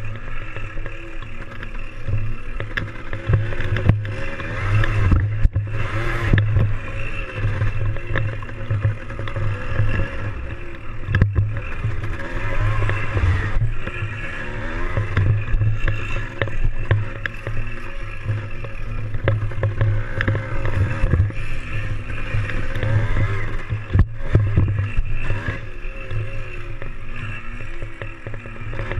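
Yamaha DT175's single-cylinder two-stroke engine running while the bike is ridden, its revs rising and falling with the throttle.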